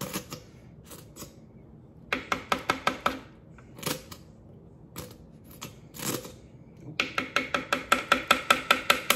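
Plastic measuring spoon knocked repeatedly against the rim of a plastic food processor bowl to shake off mustard: quick clicks at about seven a second. There is a short run about two seconds in, a few single knocks, and a longer run near the end.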